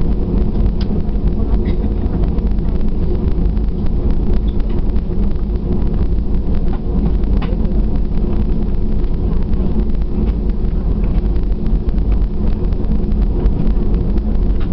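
Cabin noise inside an Airbus A320-200 rolling on the ground: a loud, steady engine rumble and hum with a constant whoosh of air, heard from a seat over the wing.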